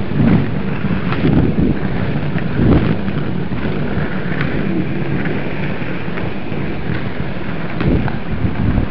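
Inline skate wheels rolling over a rough path surface: a steady, loud rumble with scattered short knocks, mixed with wind on the microphone.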